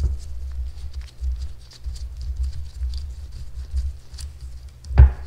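Harbor Freight valve spring compressor being slowly unscrewed on a valve spring to ease the spring's pressure off: light scattered clicks and scraping of the tool's screw and jaws under gloved hands. One loud metallic knock comes about five seconds in.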